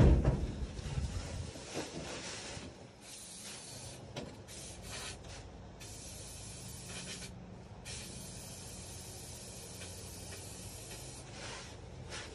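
A loud bang right at the start with a rumble fading over the next second or two, then an aerosol can of starting fluid sprayed at the Commer TS3 two-stroke diesel in several long hisses, the longest about three seconds, with short breaks between them.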